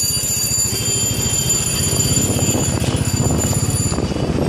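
Motorbike engine running at low speed, its firing pulses steady. A high-pitched steady ringing tone sits over it and stops about four seconds in.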